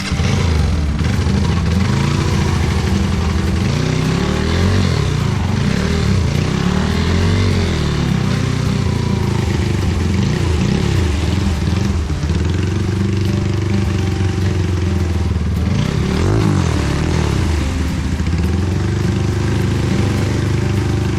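Trail motorcycle engine revving hard in bursts, its pitch rising and falling over and over as the bike is worked through mud, likely while stuck in a rut.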